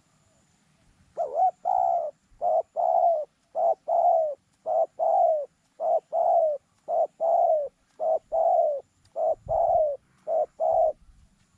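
Dove cooing: a steady series of about ten short-then-long paired coos, starting about a second in and stopping shortly before the end.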